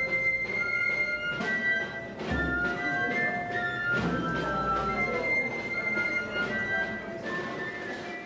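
Processional music on flute and drum: a high melody of held notes, with a few drum strokes under it.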